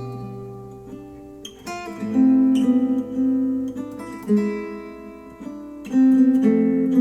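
Acoustic guitar music played back through Focal Chora 806 bookshelf speakers: chords struck about every two seconds, each left ringing and fading before the next.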